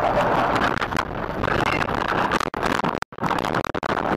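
Vehicle crash heard from inside the car: a jumble of knocks, rattles and scraping over rough noise, cutting out briefly about three seconds in.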